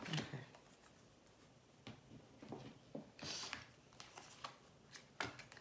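A deck of tarot cards being shuffled by hand: scattered soft card clicks and slaps, with a brief swish of cards about three seconds in.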